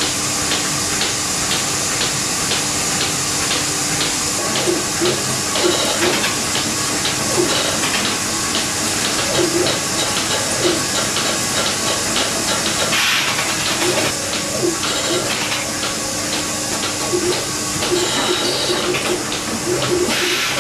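Fullwood robotic milking unit running: a steady hiss of air and milk through the vacuum lines, with rapid, regular clicking over a constant machine hum.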